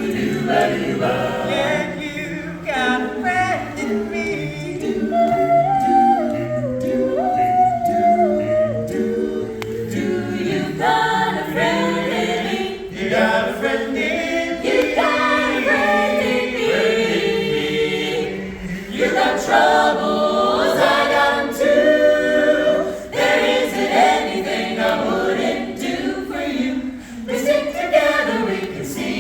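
An a cappella vocal ensemble singing a Disney song in several-part harmony with no instruments. A low bass line runs beneath the higher voices.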